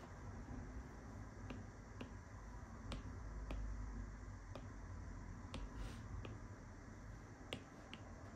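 Apple Pencil's plastic tip tapping and stroking on an iPad's glass screen: about a dozen light, sharp ticks at irregular spacing, one a little louder near the end, over a faint low background hum.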